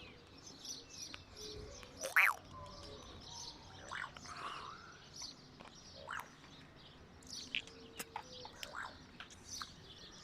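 Sharp bird-like chirps and whistled calls, a handful of separate strokes, the loudest about two seconds in, with a short warble in the middle. Fainter high chirps of other birds go on throughout.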